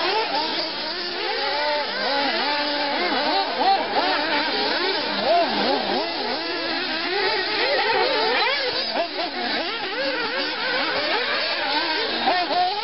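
A pack of 1:8 scale nitro off-road RC cars racing, their small two-stroke glow engines revving up and down over one another. The result is a dense, continuous mix of high-pitched engine whines that rise and fall.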